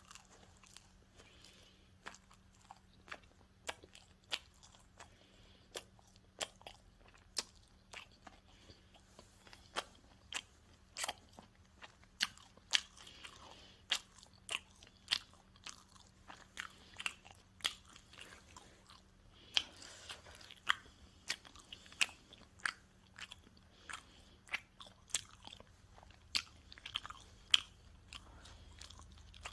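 Pizza being chewed and bitten close to the microphone: a steady run of sharp, crisp crunches and wet mouth clicks, about one or two a second.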